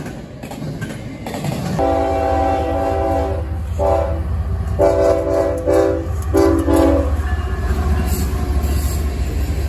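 Freight train rolling past, then a CSX diesel locomotive sounding its multi-note air horn in four blasts, long, short, long, short, as it approaches a grade crossing, the usual crossing warning. A steady low engine and rail rumble runs under the horn and on after it.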